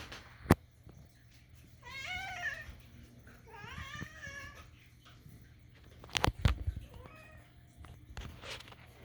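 Kitten meowing for food: two drawn-out, wavering meows about two and four seconds in. A sharp knock comes just before them, and a quick cluster of knocks about six seconds in.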